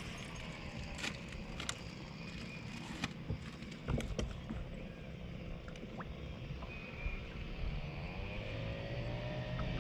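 Electric bow-mounted trolling motor running with a steady hum and whine. Its pitch slides up near the end as its speed is changed. A few sharp clicks sound in the first half.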